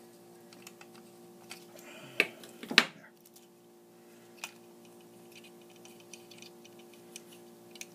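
Light clicks and taps of small parts and tools being handled, with two louder knocks a little after two seconds in, over a faint steady hum.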